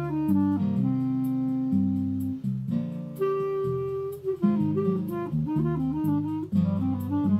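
Clarinet playing a slow melody over a chordal accompaniment: long held notes, then a quicker run of moving notes from about halfway through.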